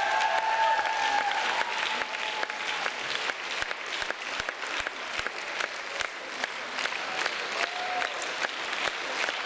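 Audience applauding, a dense patter of clapping. A voice holds a long note that fades out over the first two seconds, and a short call comes near the end.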